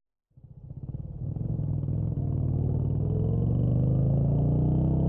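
Motorcycle engine starting up out of silence, growing louder over the first couple of seconds, then running steadily with its pitch slowly rising.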